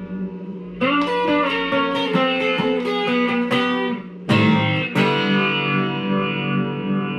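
Guitar playing an instrumental passage of a song. Chords are struck about a second in and again around four and five seconds, each left to ring.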